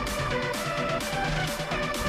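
Electronic background music with a steady beat of about two strokes a second under a held synth melody.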